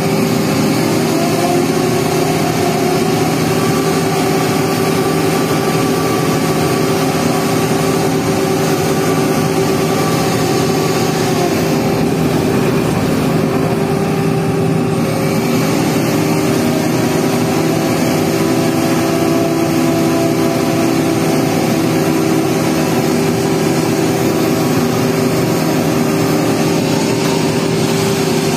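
Engine of construction machinery running steadily, its pitch shifting slightly a couple of times.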